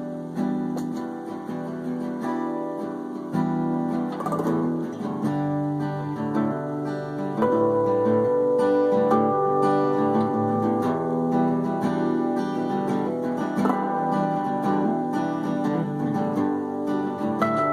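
Instrumental introduction of a song, played on plucked acoustic guitar, with no singing.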